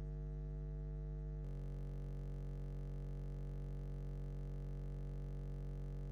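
A steady low hum with many even overtones, unchanging in level. Its tone shifts slightly about one and a half seconds in.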